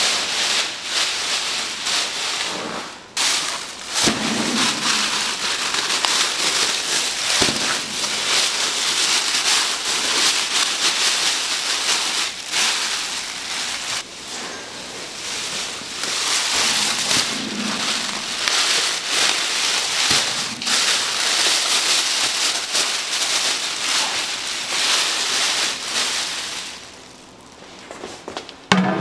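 Food sizzling and crackling in a hot pan, with a few light knocks and a couple of abrupt breaks in the sound.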